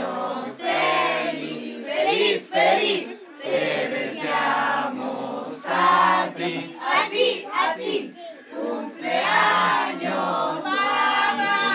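A group of family members singing a birthday song together in mixed voices, each phrase held for about a second.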